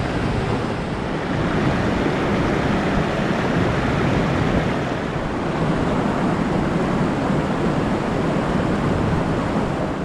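Wind buffeting the microphone: a steady, loud rushing roar with no distinct events in it.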